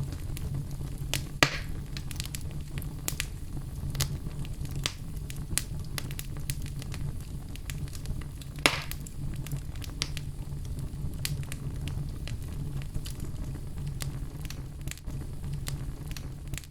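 Fire burning in a fireplace: a steady low rumble with frequent crackles and pops, two sharp pops standing out, about a second and a half in and again near the middle.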